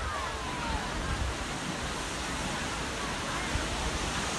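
Steady wash of small surf waves breaking on a sandy beach, with a low rumble of wind on the microphone. A faint, distant voice rises and falls in the first second.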